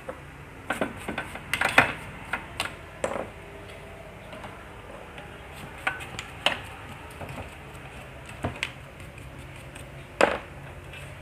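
Clicks and knocks of a Toa amplifier's circuit board, heatsink and sheet-metal chassis being handled and set down, irregular and scattered, with a loud knock about two seconds in and another just after ten seconds.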